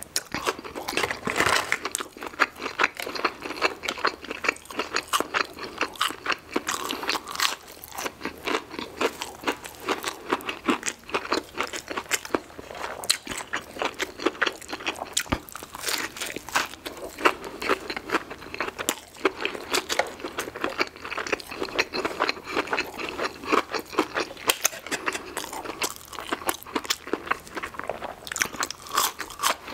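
Close-miked eating: crisp crunching and chewing as breaded Chick-fil-A chicken nuggets and a fried chicken sandwich are bitten into and chewed, a dense run of crunches throughout.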